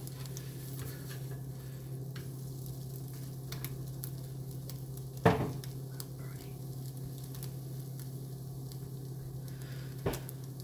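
Eggs sizzling as they fry in a pan, over a steady low hum. A sharp knock comes about halfway through, and a smaller one near the end.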